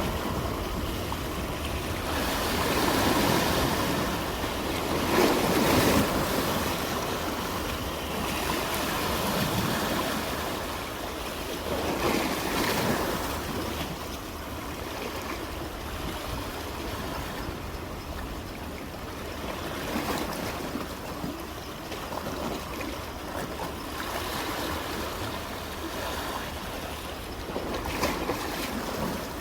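Ocean waves washing onto the shore, a steady rush of surf that swells with each incoming wave every several seconds, loudest about five seconds in.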